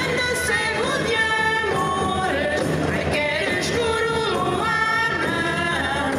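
A folk singing group performing a traditional Portuguese song, several voices together holding long sung notes that glide from one pitch to the next.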